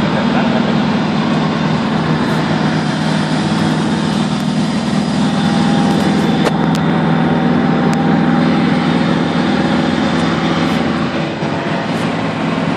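Steady engine and tyre noise of a moving van heard from inside its cabin, with a low hum under it.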